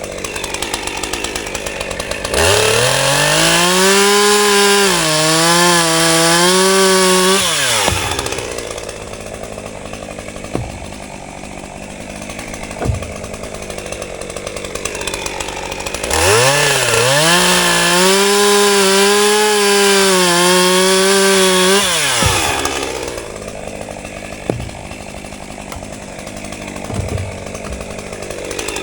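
Two-stroke chainsaw bucking a log into firewood rounds. It idles, then runs at full throttle twice for about six seconds each, its pitch wavering under the load of the cut, and drops back to idle in between.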